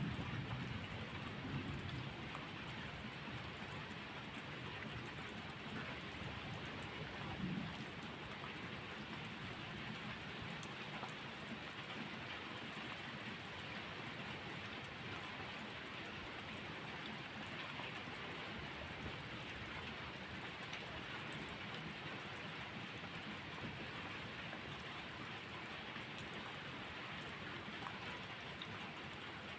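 Steady rain falling, an even hiss without letup. A low rumble fades away in the first couple of seconds, and a brief low swell comes about seven seconds in.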